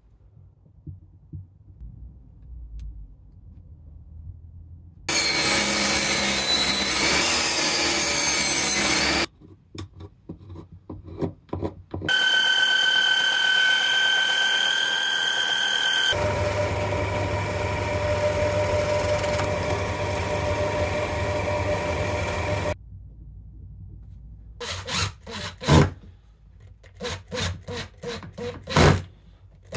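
Woodworking power tools in turn. First comes about four seconds of loud cutting or sanding noise on wood. Then a benchtop belt and disc sander runs steadily with a held whine for about ten seconds, shaping plywood. Near the end, a cordless impact driver fires in several short bursts, driving screws into plywood.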